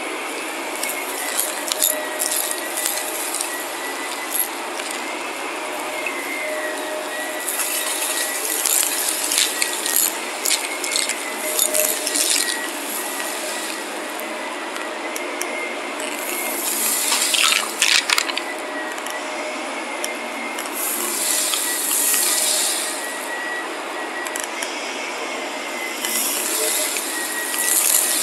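Shark upright vacuum cleaner running on carpet: a steady motor drone with a thin high whine, broken several times by surges of crackling rattle as grit and fine dirt are sucked up.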